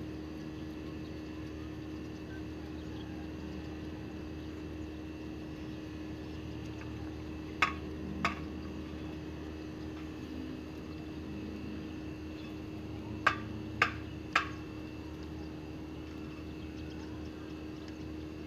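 A steady low hum throughout, broken by short sharp clicks: two about half a second apart a little before the middle, then three more in quick succession about three quarters through.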